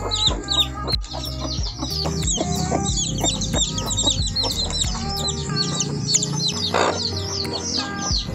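A brood of Philippine native chicken chicks peeping, many short high peeps falling in pitch, overlapping in a rapid stream.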